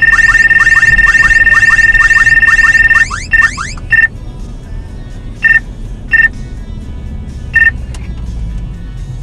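Radar detector alert: a loud steady high beep overlaid with rising chirps about three a second, which stops about three seconds in, followed by five short single beeps. It warns of a police speed radar on the 34.282 GHz Ka band. Car cabin and road noise run underneath.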